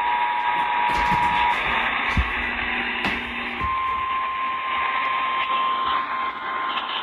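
Emergency Alert System attention signal, two steady tones sounding together over radio static, cutting off about a second and a half in. After a couple of seconds of hiss, a single steady alert tone starts and holds: the 1050 Hz NOAA Weather Radio warning alarm.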